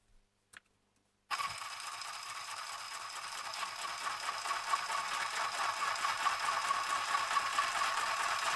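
Mini sewing machine running at a steady speed, stitching through two pieces of paper. It starts suddenly about a second in and keeps going without a break.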